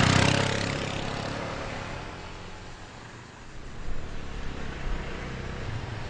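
Motor scooter engine pulling away and fading as the scooter rides off into the distance, with uneven engine noise picking up again about four seconds in.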